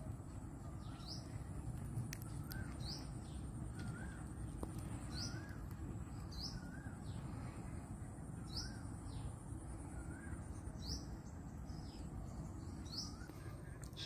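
Birds calling over and over: a short rising high note and a lower, wavering note, each coming about every two seconds. Under them run a steady low rumble and a faint, steady high whine.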